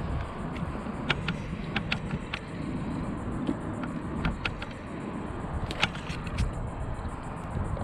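A steady low rumble of traffic on the bridge overhead. Over it come a dozen or so sharp clicks and ticks from a spinning rod and reel being handled as a baited rig is readied and cast, most of them in two clusters early on and around the middle.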